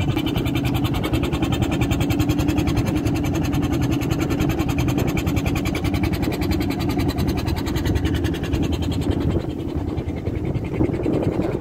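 Fishing boat's engine running steadily with a fast, even chugging beat.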